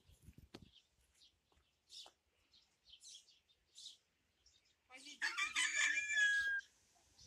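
A rooster crowing once, about five seconds in, with small birds chirping faintly throughout.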